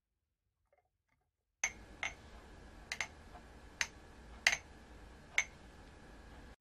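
Sharp, irregularly spaced clicks, about seven in four seconds, some close together in pairs, over a faint steady hum that starts abruptly about a second and a half in.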